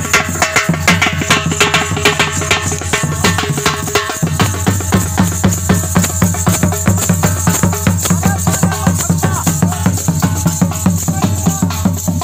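Nagara kettle drums beaten with sticks in a fast, steady rhythm accompanying a Faruwahi folk dance, with a rattling jingle over the drumming. The beat eases briefly about four seconds in.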